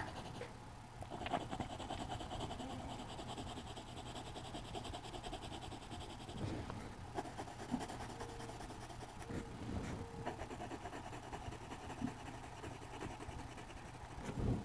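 Colored pencil scratching faintly on drawing paper in quick back-and-forth shading strokes. About eight seconds in, a mourning dove coos three times in the background.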